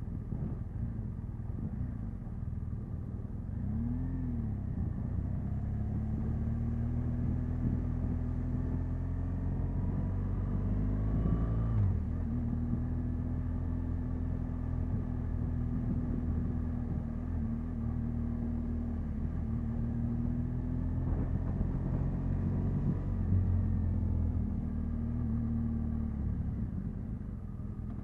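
Motorcycle engine running under way on a wet road, its note mostly steady but climbing about eleven seconds in and then dropping suddenly, with a brief dip and rise in pitch earlier.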